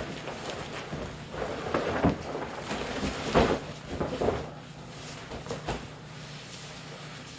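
Thin vinyl of a deflated inflatable pool crinkling and rustling as it is gathered up by hand, in uneven bursts that thin out after about four and a half seconds.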